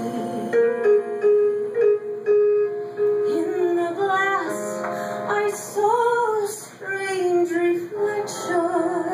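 A woman singing a slow song into a microphone, holding long notes with vibrato, over a keyboard accompaniment.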